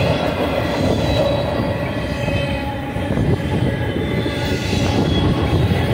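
Double-stack intermodal well cars of a freight train rolling past at speed: a steady rumble of steel wheels on rail, dipping slightly in the middle, with a faint thin steady squeal over it.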